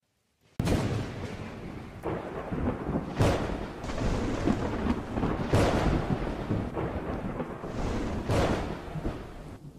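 Thunder sound effect: a continuous rumble of noise starting about half a second in, broken by sharper cracks about two, three, five and a half and eight seconds in.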